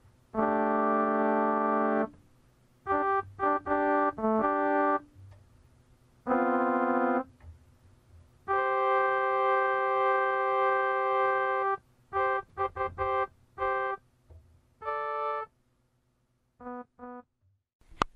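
Electronic keyboard playing sustained organ-like chords, each held about one to three seconds with short silences between, and a few quicker runs of short notes. The longest chord comes about halfway through, and a few faint short notes come near the end.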